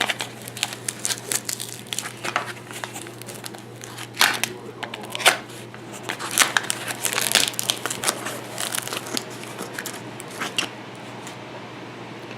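Mail packaging being torn and crinkled open by hand: an irregular run of crackling, crinkling and tearing noises, busiest from about six to nine seconds in and thinning out near the end.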